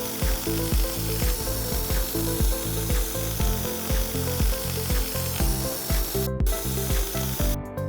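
Background music with a steady beat, about two beats a second, over low held notes that change every half second or so.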